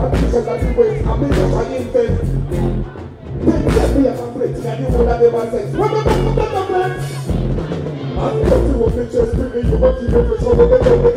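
Loud live dancehall music over a stage PA: a deejay's voice on the microphone over a heavy, bass-driven riddim with a steady beat.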